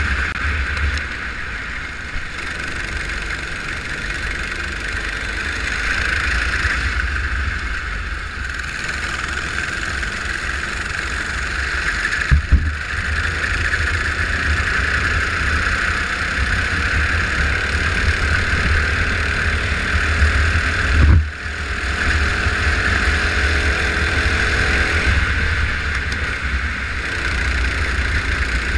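Go-kart engine running steadily at speed, heard from an onboard camera, with a strong low rumble beneath it. Two brief knocks cut across it, one near the middle and a louder one about two-thirds through.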